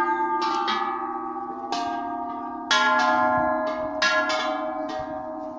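A row of hanging metal temple bells struck one after another, about nine strikes spaced a third of a second to a second apart, each ringing on in several clear tones and overlapping the next.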